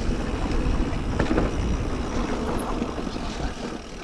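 Mountain bike on a dirt trail, heard from a camera riding on it: tyres rolling over the ground with knocks and rattles from the bike, under a deep wind rumble on the microphone. The rumble eases about three and a half seconds in.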